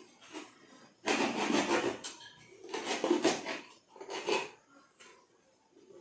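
Foil seal on a plastic protein-powder tub being cut through and torn off, in three bursts of scratchy, rustling noise about a second in, around three seconds and just after four.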